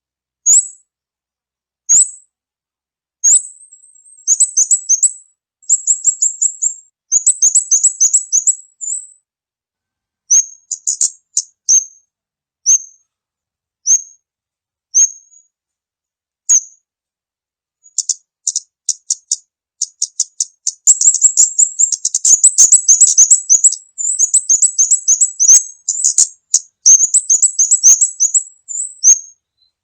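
Kamade bird lure call: very high, sharp chirps. Single notes come about a second apart, alternating with rapid chattering runs of notes that fill most of the second half.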